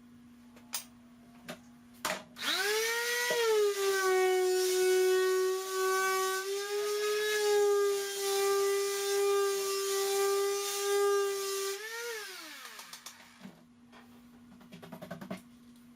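Electric sander on wood panel edges. A few clicks come first. At about two seconds it is switched on and spins up with a rising whine, then runs steadily for about ten seconds with a sanding hiss. It is then switched off and winds down with a falling whine.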